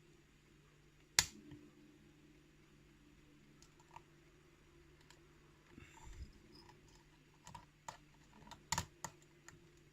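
Lock pick and tension wrench working the pins of a pin-tumbler challenge lock: scattered faint clicks, with one sharper click about a second in and a quick run of clicks near the end.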